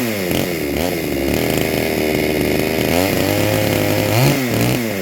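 Chinese MS360-clone two-stroke chainsaw engine running and being revved up and down repeatedly, with one longer held rev a little past the middle. It is running after its rebuild, with the no-spark fault traced to the flywheel now fixed.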